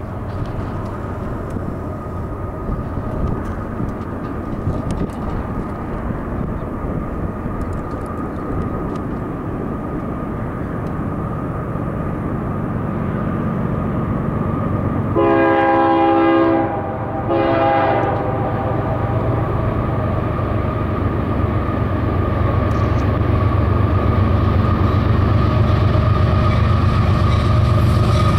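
Diesel freight train approaching behind a Canadian Pacific lead locomotive: a low engine and rail rumble that grows steadily louder. About halfway through the locomotive's horn sounds twice, a longer chord then a shorter one.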